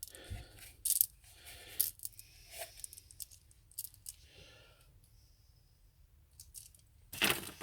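Small metal cartridge fuses clinking and rattling in a few brief, faint bursts as they are rummaged through by hand.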